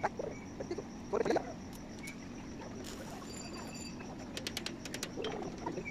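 Light metal handling sounds as a bent steel strip is fitted into a steel ring of a window grill: a sharp tap that rings briefly at about three seconds, then a quick run of small clicks.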